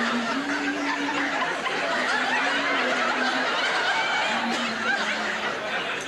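Studio audience laughing continuously, a sustained wave of chuckles and laughter from many people.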